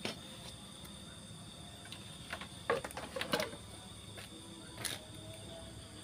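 Light clicks and knocks of a rubber radiator hose with its metal clamp being handled and fitted onto a scooter radiator's outlet pipe, a quick cluster of them a little past midway and one more near the end, over a faint steady hum.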